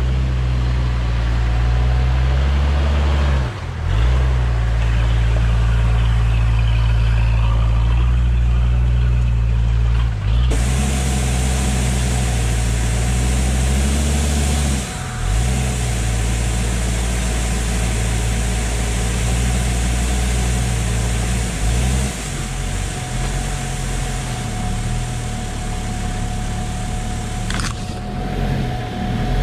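Toyota Land Cruiser HZJ73's 1HZ inline-six diesel running at low revs as it crawls a rough trail, its note dipping and changing pitch briefly a few times. From about a third of the way in a steady hiss of wind and road noise rides over the engine.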